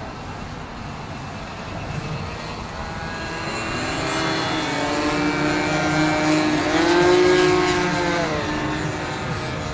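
Several .46–.55 size glow-fuel (nitro) engines of Avicraft Panic RC biplanes buzzing as the formation flies past. The engine notes grow louder and bend up and then down in pitch as planes pass, loudest about seven seconds in.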